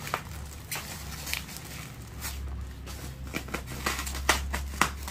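Hands working open the foil-covered lid of a wooden packing crate: irregular sharp clicks and rustling of the packing, over a steady low hum.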